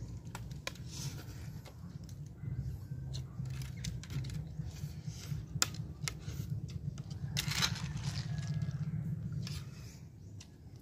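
Metal spoons scraping and clicking against plates while people eat, with a denser run of scraping about seven and a half seconds in.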